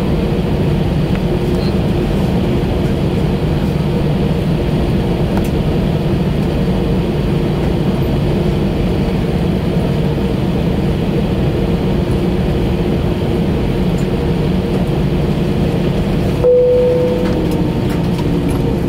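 Steady cabin noise inside an Airbus A320 taxiing slowly to the gate: a constant engine hum with rushing air and a few low droning tones. A short, higher tone sounds about 16 and a half seconds in, and near the end the hum's pitch begins to fall.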